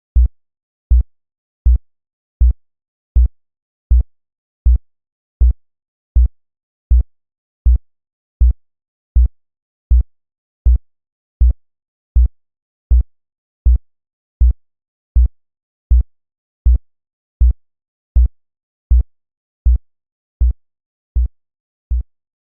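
Synthesized heartbeat at a steady 80 beats a minute: a single deep, low thump about every three quarters of a second, evenly spaced with silence between beats, in a normal resting rhythm. The beats grow slightly softer near the end.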